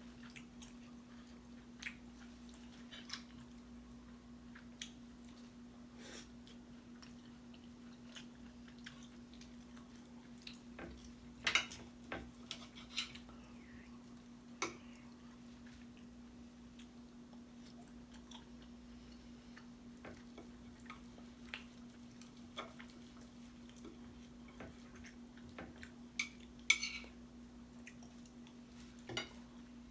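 A person chewing food, with scattered faint clicks and taps of eating, the loudest about a third of the way in and near the end. A steady low electrical hum runs underneath.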